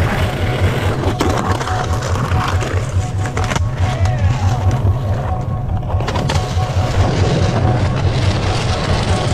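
Skateboard wheels rolling over rough concrete in a steady low rumble, with a few sharp clacks of the board, under background music.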